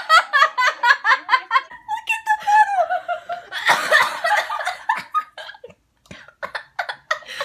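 Two girls laughing hard in rapid, pitched bursts, with a short burst of noise about four seconds in; the laughter grows quieter and sparser toward the end.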